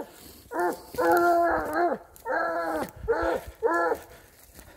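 Young boar-trailing scent hound baying on a wild boar's track: five pitched cries in quick succession, the second the longest at nearly a second, most falling off at the end. This voice is the hound giving tongue on the scent.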